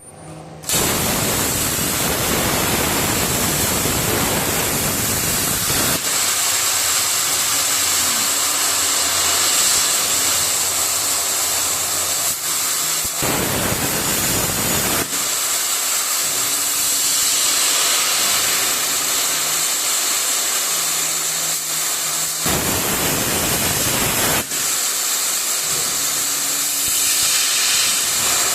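CNC plasma cutter running: the torch gives a steady loud hiss with a high whistle. Three times, for about two seconds each, it becomes a harsher, fuller rush of noise.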